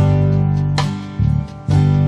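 Background music with strummed acoustic guitar chords.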